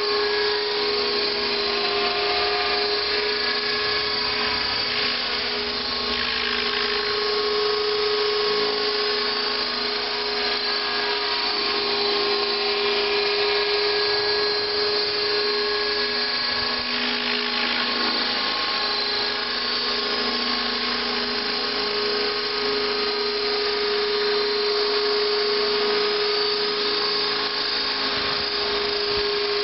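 Align T-Rex 600 electric RC helicopter in a scale MD 500 fuselage flying, with a steady high whine from its electric motor and spinning rotors.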